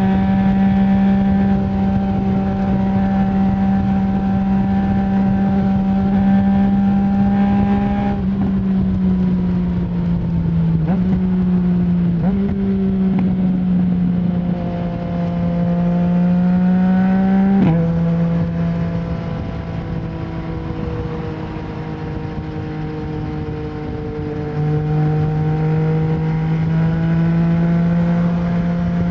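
A Yamaha MT-09's three-cylinder engine running through an Akrapovic full exhaust with no dB killer, heard from the rider's helmet while cruising. Its pitch holds or glides gently, with a few abrupt steps where it changes gear, the sharpest about two-thirds of the way in.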